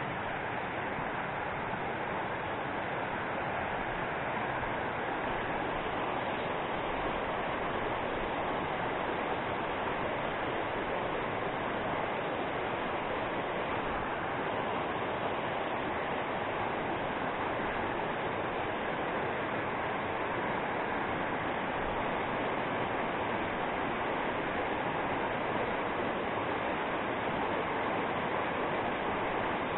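Fast mountain river rushing over rocky rapids: a steady, even rush of white water.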